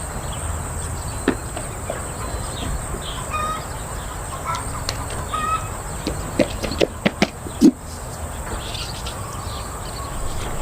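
Outdoor ambience: short bird calls over a steady high insect drone, with several sharp clicks about six to eight seconds in.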